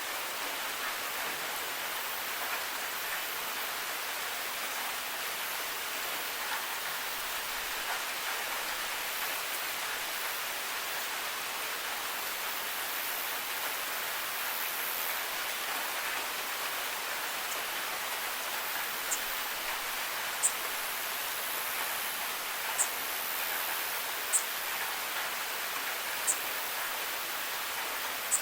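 Steady rain falling, an even hiss. In the second half a few sharp, high ticks stand out, about one every couple of seconds.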